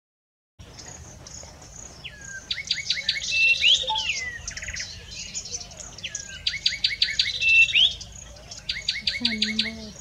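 Grey-capped warbler singing. The phrase is made of rapid repeated notes and sliding whistles, given twice about four seconds apart and begun a third time near the end. Under it runs a steady high-pitched chipping. The song starts about half a second in.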